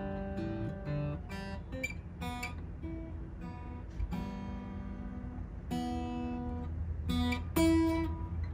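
Taylor 110GB acoustic guitar played by hand, a loose run of picked single notes and chords ringing out one after another, a little louder near the end. It is a playability test just after a setup, truss rod and bridge adjustment and new strings.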